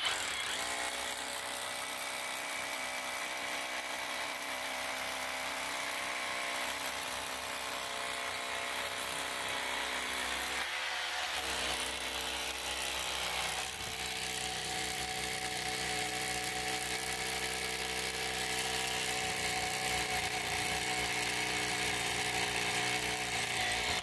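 Ridgid Octane cordless hammer drill running in hammer-drill mode, a long masonry bit boring into cured concrete. It runs steadily, with a short pause about 11 seconds in.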